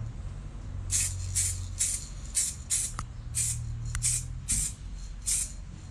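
Aerosol can of touch-up paint sprayed in about ten short hissing bursts, the paint laid on in small amounts.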